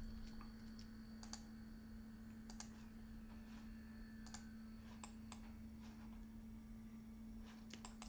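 Faint computer keyboard and mouse clicks, scattered and irregular, with a few quick keystrokes near the end, over a steady low electrical hum.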